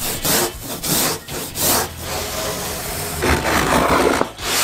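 Hand sanding and rasping of an expanded-polystyrene (EPS) foam surfboard blank being shaped, in back-and-forth strokes about two to three a second. About halfway in it turns to steadier rubbing, with a louder stretch near the end.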